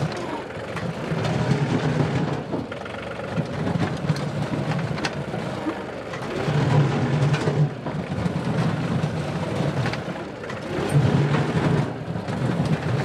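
John Deere 2038R compact tractor's diesel engine running under working load, its note swelling and easing every few seconds as the front loader bucket digs, with occasional sharp knocks.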